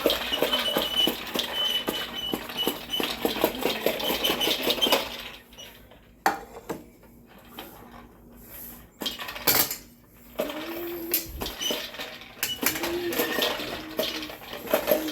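Baby's popper push toy clattering as its plastic balls pop and rattle inside the dome while it is pushed. The clicking is dense for the first five seconds, thins to separate clicks for a few seconds, then picks up again.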